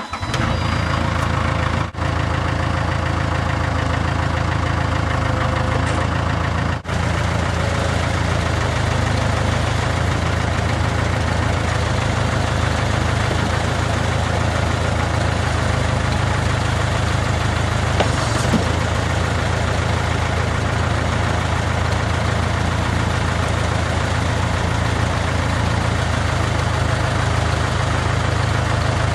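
Case 580K backhoe's diesel engine idling steadily just after being started, with two brief dips in the sound in the first few seconds.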